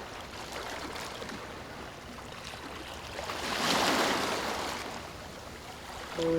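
Ocean surf washing, with one wave breaking and swelling louder about four seconds in.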